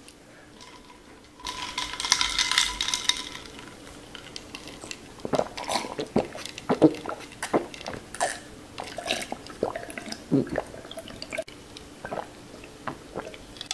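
A person drinking an iced drink from a glass. Ice clatters in the glass as it is lifted, then comes a run of gulping swallows, close to the microphone.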